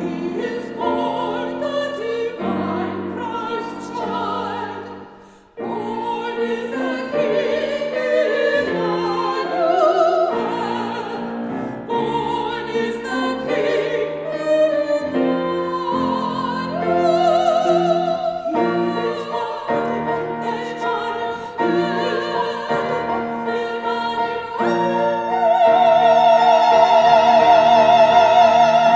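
A soprano and a mezzo-soprano sing a Christmas carol duet in operatic style with piano accompaniment, their voices carrying a wide vibrato. In the last few seconds both voices hold a long final note together.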